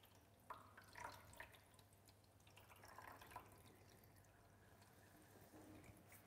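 Faint, uneven dripping and splashing as water is poured from a galvanised watering can into the water trough of a Tormek wet grinder.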